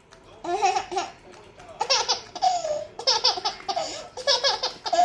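Baby laughing in about four high-pitched bouts, one after another.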